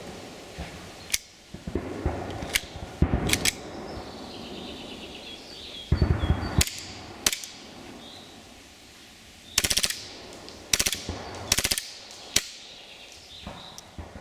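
WE G18C Gen4 gas blowback airsoft pistol firing: sharp pops, singly at first, then in four short full-automatic bursts of rapid shots, with a few more single shots between and after.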